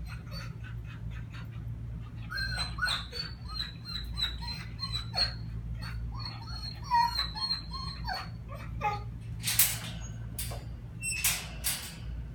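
Dog whining and whimpering in many short, high-pitched bursts, some bending in pitch. Near the end come two longer noisy bursts.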